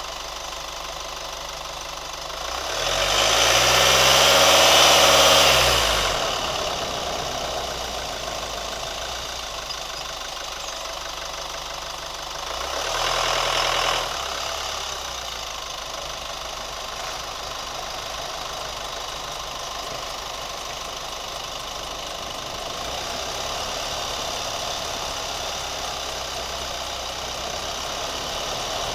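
New Chevy Colorado pickup's engine idling, revved up and let fall back twice: a long rev about three seconds in and a shorter one around thirteen seconds. It is the engine whose ticking sound the owner is demonstrating.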